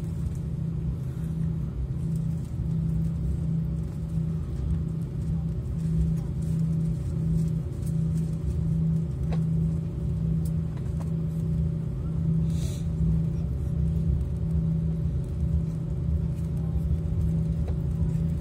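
Airbus A340 cabin noise heard from a window seat over the wing while the airliner taxis: a steady low engine and airflow hum with a slow throb, and a short hiss about twelve seconds in.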